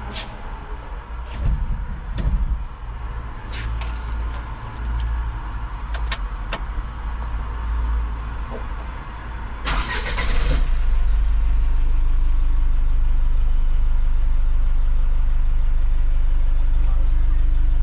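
Mitsubishi L300 Euro 4 common-rail turbo-intercooler diesel engine running, with a few clicks and knocks over the first ten seconds. About ten seconds in there is a short loud burst of noise, and then the engine settles into a steady, louder idle.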